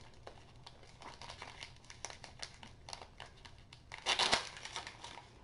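Crinkling and rustling of something being handled: a run of small crackles, with a louder crinkle about four seconds in.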